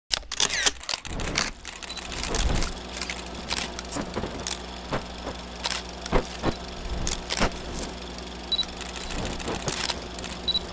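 Vintage 8 mm film sound effect: a steady low hum with irregular crackles and pops, starting abruptly.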